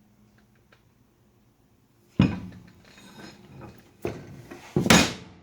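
Metal clanking and knocking: a sharp loud clank about two seconds in, then scattered rattling, another knock, and a louder clank near the end.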